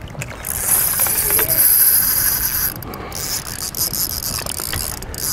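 Spinning reel being wound on a slow retrieve of a crankbait: a steady mechanical whirr from the rotor and gears. It starts about half a second in, drops out briefly near the middle and carries on more faintly.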